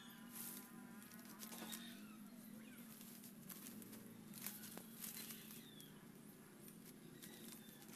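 Faint dry rustling and clicking of coconut palm leaflets being handled and tied by hand, over a steady low hum.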